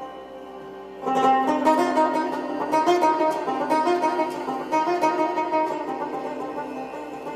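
Background music, instrumental, with a fuller, louder passage coming in about a second in.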